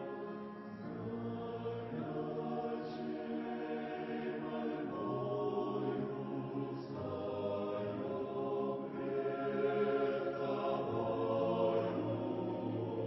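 Choir singing a slow hymn in held chords that change every couple of seconds.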